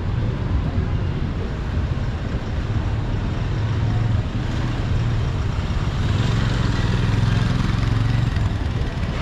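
Street traffic: motor vehicle engines running, with a steady low hum that grows louder about six seconds in as a vehicle passes close by.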